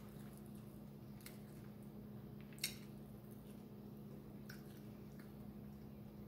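Faint eating sounds: a few small wet clicks and smacks as food is pulled apart by hand and chewed, the sharpest about two and a half seconds in, over a steady low hum.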